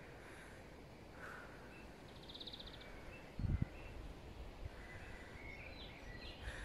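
Faint outdoor ambience with birds calling: a short, rapid trill about two seconds in and a few faint chirps later. About three and a half seconds in there is a brief low thump, the loudest sound, from wind or handling on the microphone.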